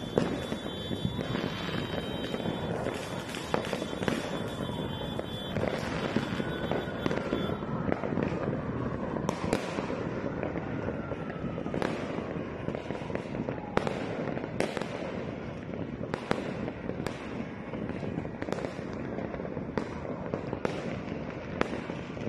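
Fireworks and firecrackers going off all around without a break: a dense crackle with frequent sharp bangs, and a long falling whistle through the middle.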